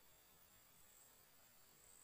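Near silence: a faint, steady, high-pitched insect drone.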